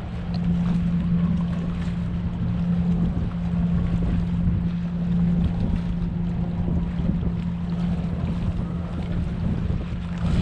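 Steady low mechanical hum, like an engine or machine running, with wind rumbling on the microphone.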